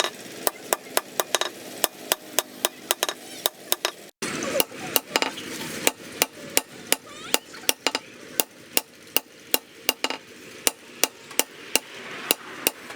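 Hammer blows on leaf spring steel at the anvil, a steady rhythm of about three strikes a second, each with a short metallic ring, broken once briefly a little past four seconds in.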